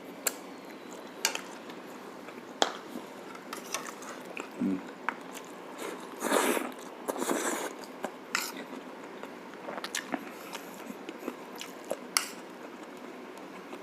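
Close-up mouth sounds of a person eating braised pork shank (pata tim): chewing and biting, with scattered sharp clicks of cutlery or utensils, and a louder, noisier stretch of chewing about six seconds in.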